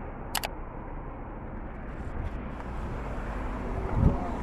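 Road noise of a moving car: a steady low rumble, with a short click about half a second in and a thump near the end.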